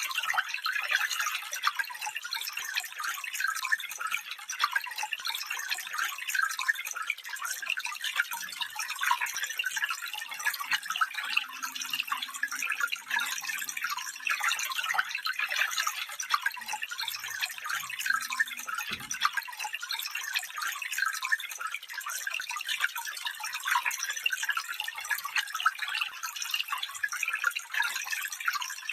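A small stream babbling over stones: steady, even trickling and splashing, light and bright, with no deep rumble.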